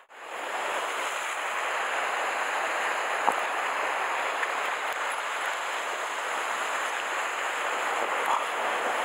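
Sea surf washing and breaking against a rocky shore, a steady hiss of water, with one sharp click about three seconds in.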